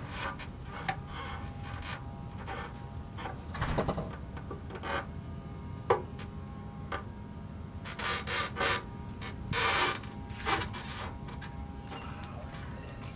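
Irregular clicks, knocks and short rubbing scrapes as a Fat Bob gas tank is worked loose by hand and lifted off a Harley-Davidson Ironhead Sportster's frame.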